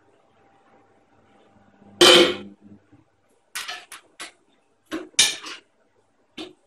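A metal spoon scraping and clattering against a cooking pot while stirring. The scrapes come as a loud stroke about two seconds in, followed by a run of shorter scrapes and clinks.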